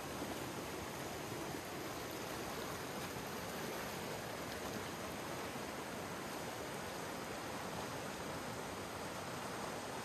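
Steady rush of flowing water where Bear Canyon Creek meets the West Fork San Gabriel River, the river running high with spring runoff.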